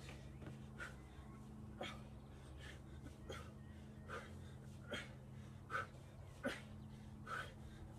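A man breathing hard from exertion during kettlebell swings, a short sharp exhale about once a second, over a faint steady hum.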